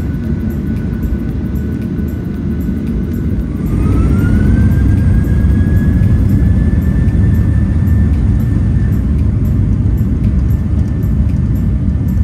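Airliner jet engines heard from the cabin spooling up to takeoff thrust: a steady rumble that grows louder about four seconds in, while a whine rises in pitch and then holds steady.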